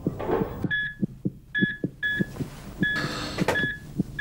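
Hospital patient monitor giving short, high, unevenly spaced beeps over a fast, thudding heartbeat. A brief hiss of noise comes about three seconds in.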